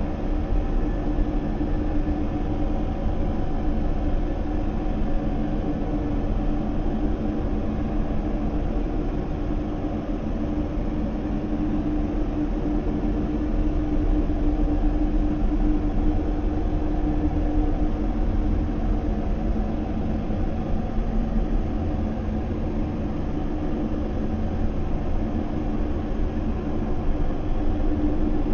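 Dark horror background ambience: a steady low rumbling drone with a sustained hum tone over it, unchanging, with no distinct events.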